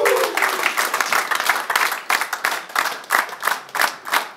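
Audience applauding. The clapping settles into an even beat of about three claps a second from about halfway through.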